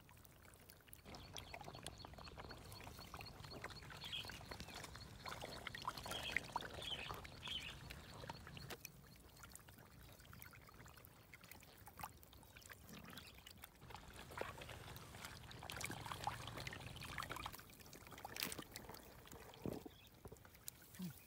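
Large fish thrashing in a shallow pool of muddy water, with irregular faint splashes, sloshing and trickling.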